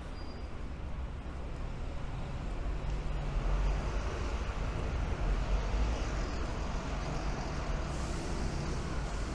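City street traffic: buses and cars running along the road, a steady hum with a low engine rumble that swells for a few seconds in the middle.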